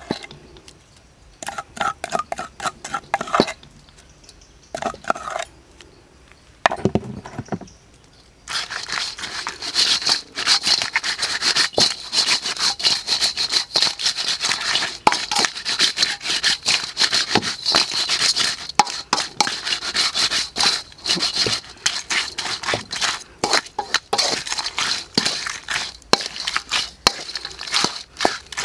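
Prawns and chili paste frying in an oiled wok while a wooden spatula stirs and tosses them: in the first eight seconds, short separate scrapes and knocks of the spatula against the wok, then from about eight seconds in a continuous loud sizzle full of crackles and clicks.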